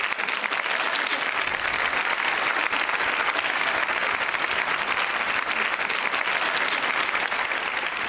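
A large studio audience and panel of judges applauding, a steady dense clapping.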